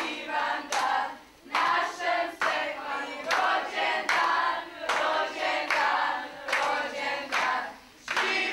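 A group of children and teenagers singing a birthday song together, clapping in time about once a second.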